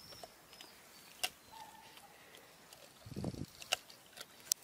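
Dogo Argentino licking and mouthing a whole raw chicken, with a few sharp wet clicks and a short low smacking sound about three seconds in.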